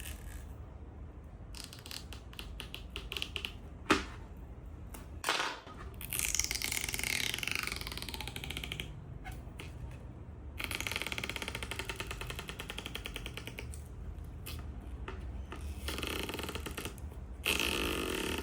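Stretch-release battery adhesive strips being pulled out from under an iPhone 6S battery with tweezers: a few sharp clicks, a falling squeal, then long runs of rapid fine crackling as the adhesive stretches and peels away.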